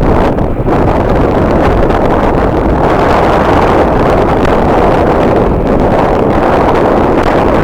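Strong wind buffeting the microphone, a loud steady rumble.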